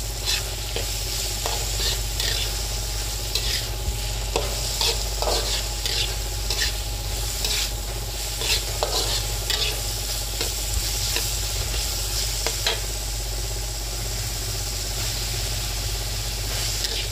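Shredded cabbage and carrot sizzling in a wok while a metal spatula stirs them, scraping and tapping against the pan at irregular intervals over a steady hiss.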